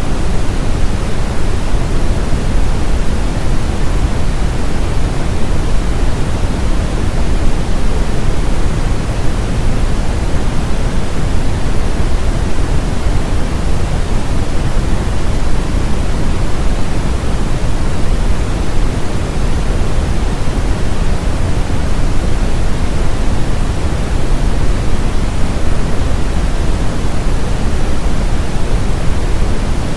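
Brown noise: a steady, even rush with most of its weight in the low end, played as a tinnitus masker.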